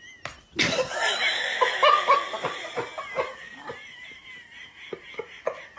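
People laughing hard in short repeated bursts that start suddenly about half a second in, are loudest in the first couple of seconds, then trail off into scattered chuckles.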